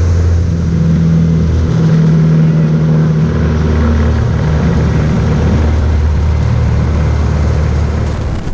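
CAP-10B aerobatic plane's four-cylinder Lycoming engine and propeller running loud and steady, heard from inside the cockpit. The engine note shifts about two seconds in and again a second and a half later as the power changes through the manoeuvre.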